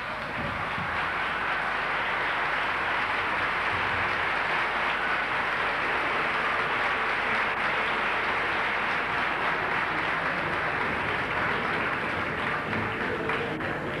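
Theatre audience applauding, steady and even.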